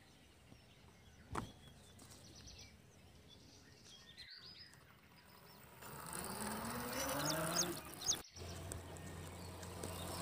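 Birds chirping over faint open-air ambience, then, about six seconds in, a TVS XL Super moped starting up: its motor rises in pitch and then runs with a steady low hum.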